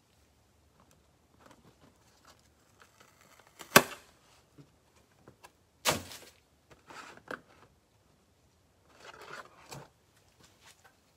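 Handling noises on a tabletop: a sharp knock about four seconds in and another about two seconds later, with light clicks and a brief rustle near the end.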